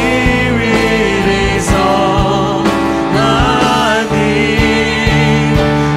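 A woman singing a Korean worship song into a microphone, with a wavering held note a little past the middle, over instrumental accompaniment with regular drum hits.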